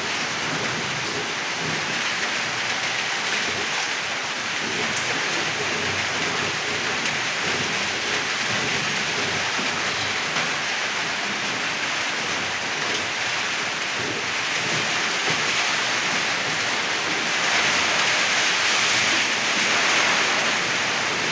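Steady rain falling, an even hiss that grows a little louder for a few seconds near the end.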